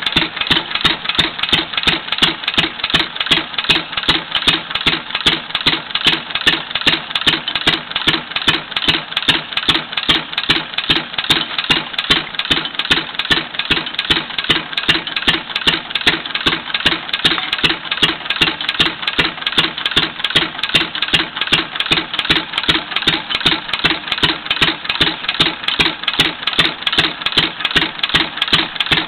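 Old stationary engine, the owner's 'M', running steadily under belt load with a rapid, even beat of firing and clatter. A long flat belt drives a second old stationary engine, which is being worn in.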